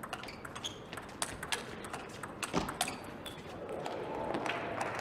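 Table tennis rally: the celluloid-type plastic ball clicks sharply off rubber-faced rackets and the table, about two hits a second. Crowd noise swells near the end as the rally finishes.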